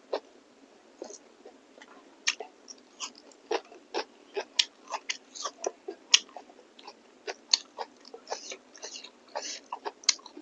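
A person eating close to the microphone: wet chewing, lip smacks and mouth clicks, irregular, a few a second.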